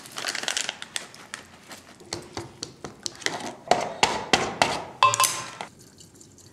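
Nacho chips rustling as they are poured from the bag onto a pan, then a run of sharp clicks and clatters of chopsticks and kitchenware for a few seconds.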